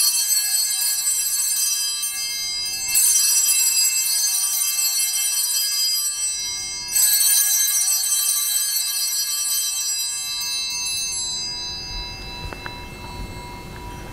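Altar bell rung at the elevation of the chalice after the consecration: a bright, many-toned ring already sounding at the start is struck again about 3 and 7 seconds in, each ring fading slowly and dying out a few seconds before the end.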